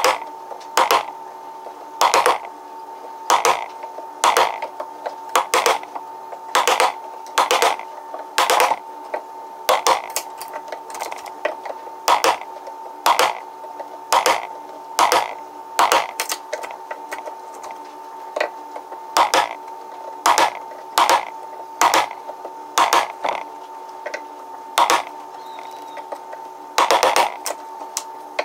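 A metal chisel being tapped into a wooden hive top to chip out a hole: sharp knocks about once a second, with a short pause about two-thirds of the way through. A steady hum sounds underneath.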